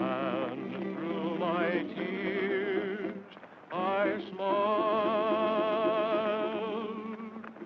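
Soundtrack song: a singer holding long notes with heavy vibrato over instrumental accompaniment, with a brief break about three seconds in.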